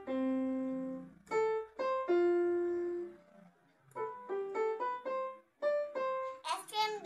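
Electronic keyboard in a piano voice playing a simple one-note-at-a-time tune: a few long held notes, then a quicker run of short notes from about four seconds in.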